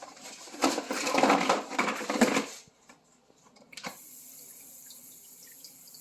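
Water splashing and sloshing in a plastic tote for about two seconds, then a click, then the steady low hiss of a 10-element ultrasonic fog mister running in the water, with faint small droplet pops.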